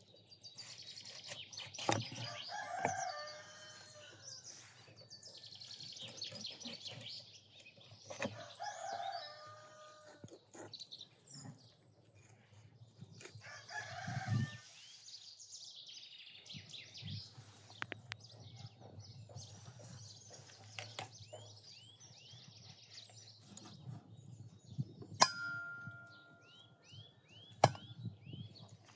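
A rooster crowing three times, with small birds chirping throughout and scattered knife taps as a raw chicken is cut on a wooden board. Near the end comes a single sharp clink with a brief ring, the loudest sound.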